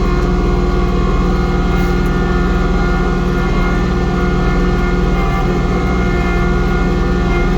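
Kubota compact tractor's diesel engine running a snowblower, a steady mechanical drone with an even, unchanging pitch.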